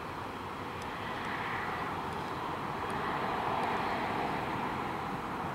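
Distant jet airliner climbing out after takeoff: a steady rushing engine noise that swells to its loudest a little past the middle and then begins to ease.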